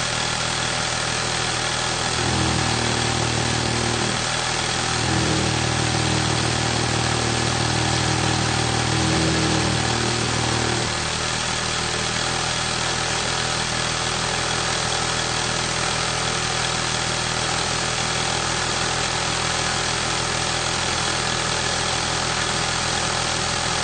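Industrial sewing machine running: a steady mechanical hum, with a deeper run in stretches from about two to four and five to eleven seconds in, then running evenly.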